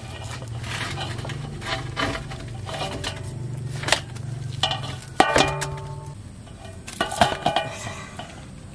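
Live fish dropped one after another into an aluminium basin, flapping and slapping against it so the metal clanks and rings, mixed with the rattle of the wire-mesh fish trap they are pulled from. The loudest clanks come about five seconds in and again about seven seconds in.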